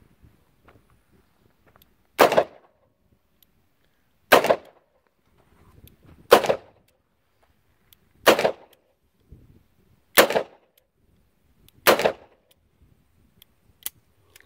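Six single shots from a Smith & Wesson Model 625 JM .45 ACP N-frame revolver, fired slowly, about two seconds apart.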